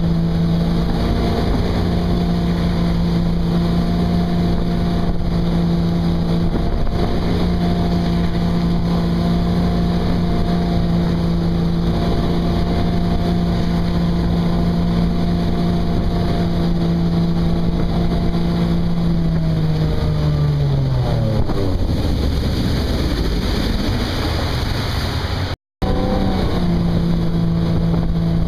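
Tow boat's engine running steadily at speed, with wind and wake noise. About two-thirds through, the engine's pitch falls away as it slows; after a brief dropout near the end it is running steadily again.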